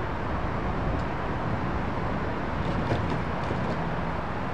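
Steady street ambience of road traffic and wind noise, with a couple of faint clicks about one and three seconds in.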